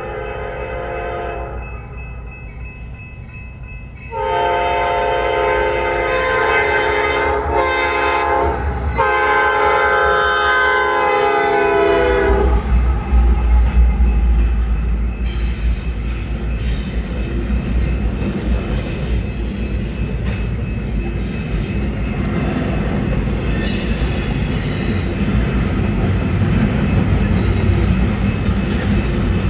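Norfolk Southern freight train's multi-chime diesel locomotive air horn: one blast ends in the first second or two, then about four seconds in come two long blasts close together. The locomotives then pass with a heavy low rumble, followed by the railcars clattering over the rail joints with occasional wheel squeal.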